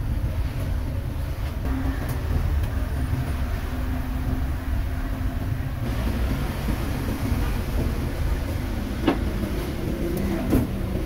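Roadside street ambience: a steady low rumble of passing vehicle engines, with two sharp knocks near the end.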